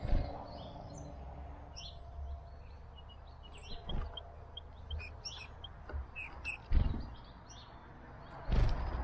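Small songbirds chirping and calling in short, high notes, many in quick succession through the middle, over steady background noise. Several dull low thumps break in, the loudest about two-thirds of the way through.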